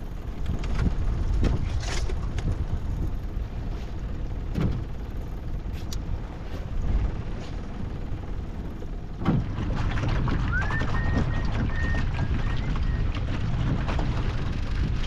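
Wind buffeting the microphone and water around a small aluminium dinghy, with a few scattered knocks. About nine seconds in it switches to a louder, steady rumble of wind and boat noise, and a short whistle rises and then holds soon after.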